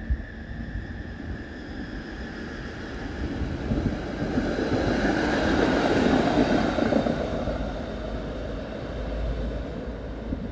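Brussels tram 7820, a PCC-type car, passing close by on its rails: the rumble of its steel wheels on the track builds, peaks about six seconds in, then fades as it moves away. A steady high whine from the tram carries through the pass.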